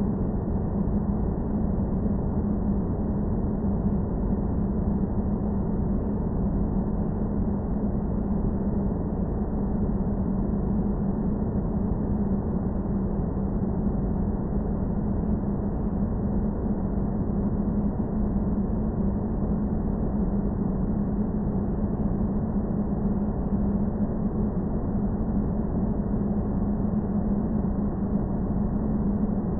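Sci-fi space-planet ambience: a steady, unchanging low rumble of noise with a constant deep hum running through it.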